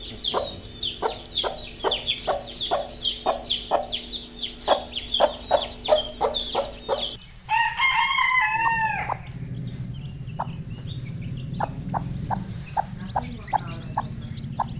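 Newly hatched chicks peeping, rapid falling high notes about three a second. About seven seconds in a rooster crows once, then fainter chick peeps go on over a low steady hum.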